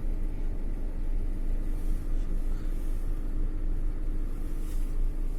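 GAZelle van's engine running, heard from inside the cab as a steady low rumble with a faint steady hum.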